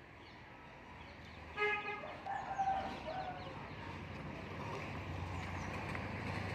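A rooster crowing once, starting about a second and a half in and lasting just under two seconds, over a low steady hum that grows louder toward the end.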